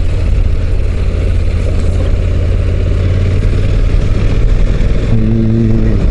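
Honda NC750X motorcycle's parallel-twin engine running steadily while riding, with a steadier pitched note near the end.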